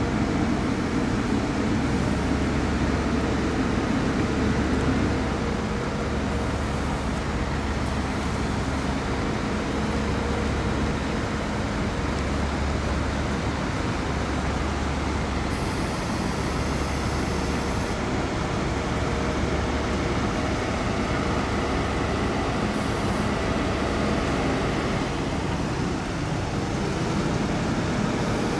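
Heavy Mercedes-Benz Actros trucks' diesel engines running steadily under load, a continuous low drone with road noise.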